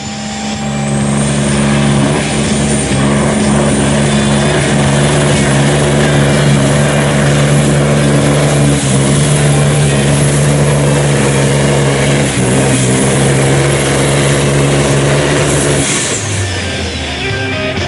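Volvo FH16 race truck's diesel straight-six, stroked to 18 litres, running hard at steady high revs under load as it drags a weighted pulling sled. A high whistle rises over the first few seconds. The engine note drops about sixteen seconds in as the truck comes off the throttle at the end of the pull.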